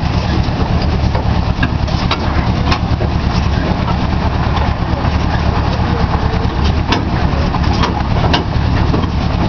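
Engine of a trackless park 'train' ride running steadily as it drives along, heard from a towed carriage, with a few sharp knocks or rattles at irregular moments.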